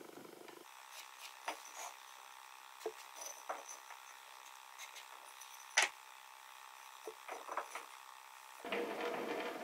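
Wooden blocks being handled on a board, with faint scattered clicks and knocks, the sharpest a little under six seconds in. Near the end a louder, steady scratchy rubbing of wood begins.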